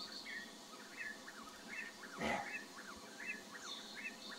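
A small bird calling repeatedly: short chirps that rise and fall quickly, about two a second, with a few higher, thinner notes near the start and the end.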